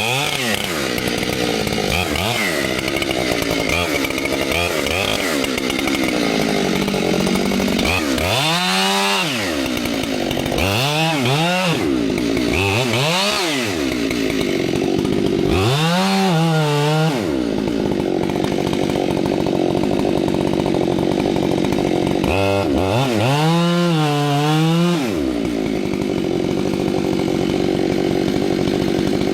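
Chainsaw running at high speed throughout, cutting into a tree trunk. The engine note drops and climbs back again several times.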